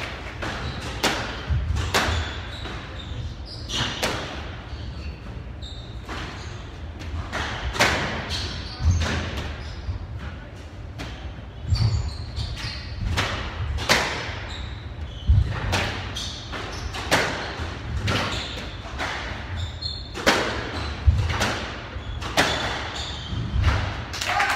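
Squash rally: the ball is struck by the rackets and cracks off the court walls over and over, about one shot every second or two, with dull thumps underneath.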